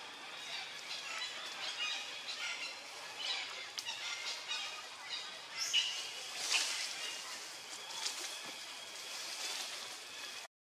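Outdoor ambience full of short, high-pitched chirps and calls, a few louder ones about two-thirds of the way in; the sound cuts out completely for a moment near the end.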